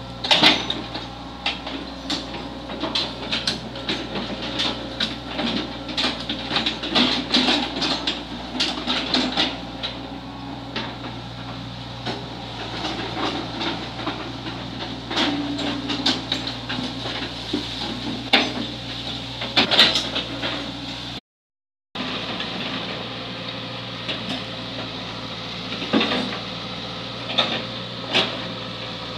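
Crawler excavator's diesel engine running steadily, with frequent metallic clanks and knocks from the bucket and arm as it digs out a drainage ditch. There is a short break about two-thirds of the way in, after which the engine carries on with fewer clanks.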